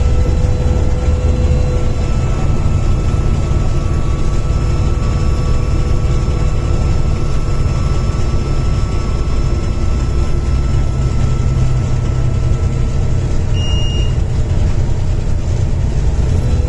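Volvo B7TL double-decker bus's six-cylinder turbodiesel running under steady load: a heavy low drone with a thin, steady turbo whine above it. A short high beep sounds about fourteen seconds in.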